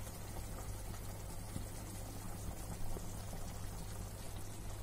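Thin potato curry boiling in a kadai: a steady soft bubbling with a few faint pops.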